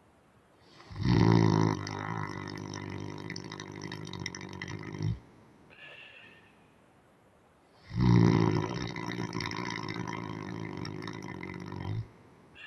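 A man snoring hard and loud: two long snores of about four seconds each, loudest at the onset and cutting off abruptly, with a soft breath between them.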